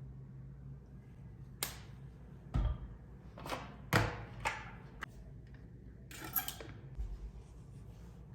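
Kitchen handling sounds while mayonnaise is added to chicken breasts for a marinade: a series of light knocks and clicks from utensils and containers, the loudest about two and a half and four seconds in, over a low steady hum.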